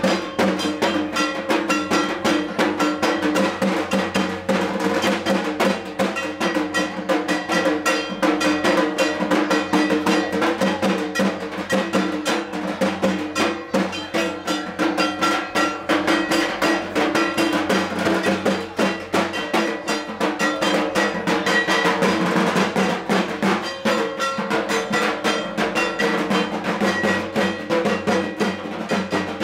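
Dhak drums beaten in a fast, unbroken rhythm with metallic clanging, the driving beat of a Durga Puja aroti.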